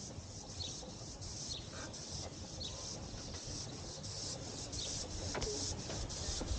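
Two 12¼-inch gauge steam locomotives working a train together, their exhaust chuffing in an even beat of about three a second over a low rumble. Birds chirp faintly now and then.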